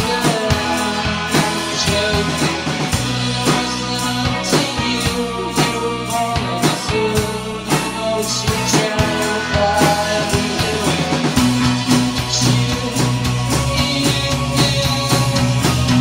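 Live rock band playing a song: strummed acoustic guitar, drum kit and bass, with keyboard, to a steady beat. The low end grows fuller partway through.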